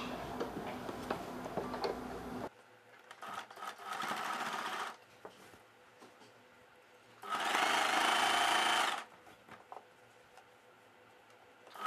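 A Wonder Stitch electric sewing machine runs in short bursts as it stitches down a double-folded fabric edge: a brief run a few seconds in, then a louder run of about two seconds past the middle. It opens with a steady hum that cuts off suddenly after about two and a half seconds.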